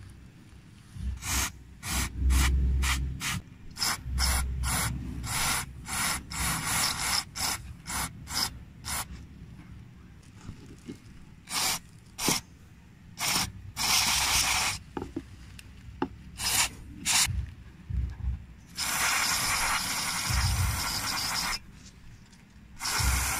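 An aerosol can of contact cleaner hissing as it is sprayed through its red extension straw into the idle air control valve port. First come many short squirts, about two a second, then fewer and longer ones, the longest about two and a half seconds. It is cleaning oil out of the IAC passage.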